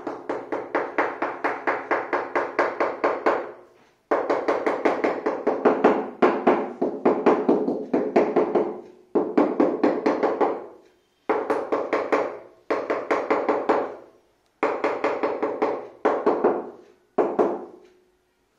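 Large vitrified floor tile being tapped rapidly with a hand tool to bed it into the adhesive, several taps a second in runs of a few seconds with short pauses, each run carrying a ringing note from the tile.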